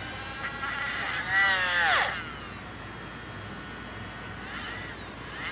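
Battery-powered toy running, a buzzing electronic whir whose pitch swoops down sharply about two seconds in and rises and falls again near the end.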